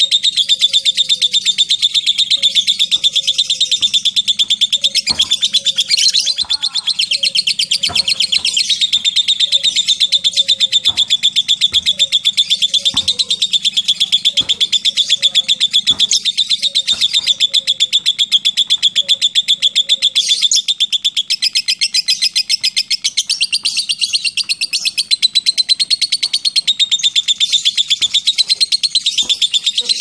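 Lovebird singing its long 'ngekek' chatter: a high-pitched, very rapid run of chattering notes with no break, wavering slightly in pitch.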